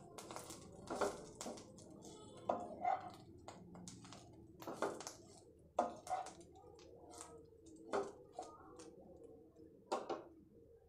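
Wooden spatula stirring curry leaves in a nonstick pan: irregular scrapes and clicks against the pan with the drying leaves rustling, as the leaves are dry-roasted on low flame until crisp.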